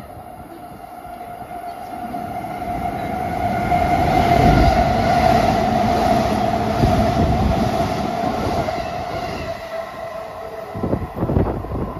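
E259 series Narita Express electric train passing through the station at speed without stopping: its rushing wheel and running noise swells over the first few seconds, is loudest about four to seven seconds in, then fades as it pulls away. A few sharp thumps near the end.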